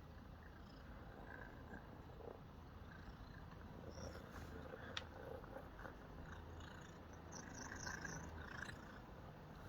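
Domestic cat purring steadily, a low, quiet rumble. A single sharp click comes about halfway through.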